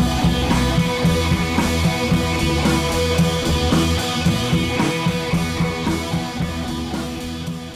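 Rock-style background music with drums and guitar, fading out near the end.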